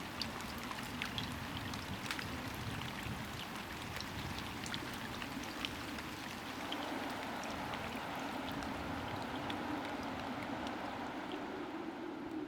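Steady hiss of water, rain or running water, with scattered drip-like ticks throughout.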